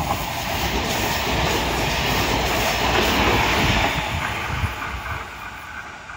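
Meitetsu 9500 series electric train running through a station without stopping. The wheels clatter over the rail joints, loudest about three seconds in as the cars pass, then fading as the train runs away.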